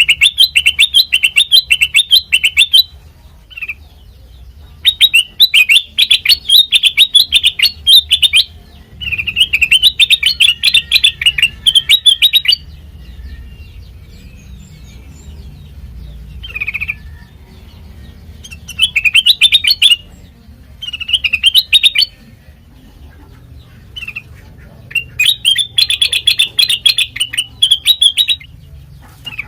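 Kutilang mas bird singing in fast, high twittering phrases, each about two to three seconds long, with short pauses between them. A faint low hum runs under the song.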